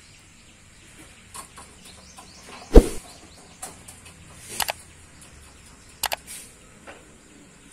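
Scattered sharp clicks and knocks over a quiet outdoor background. The loudest is a single thump a little under three seconds in, and pairs of quick clicks come about four and a half and six seconds in.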